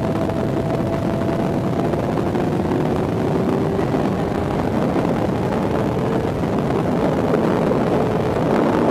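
Sport motorcycle's engine running at high revs under steady throttle, its pitch climbing slowly as the bike drives through a long corner. A rush of wind noise runs under it.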